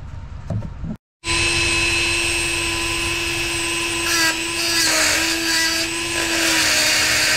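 Rotary tool with a small cutoff wheel grinding into a stuck steel bolt head: a steady high whine over a harsh grinding hiss that starts abruptly about a second in, wavering slightly as the wheel bites.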